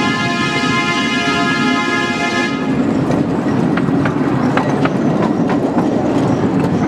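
A quarter-size miniature train rolling along its track: the locomotive's horn sounds one long steady chord-like blast that stops about two and a half seconds in, over the steady rumble of the riding cars. After that the wheels click irregularly over the rail joints.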